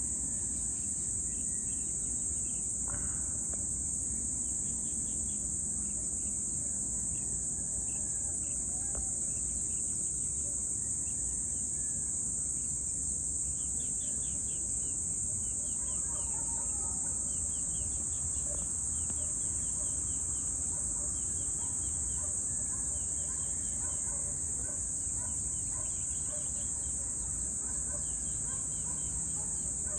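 A steady, high-pitched insect chorus of crickets or cicadas, with pulsing trills below it. A few scattered bird chirps come and go, over a low background rumble.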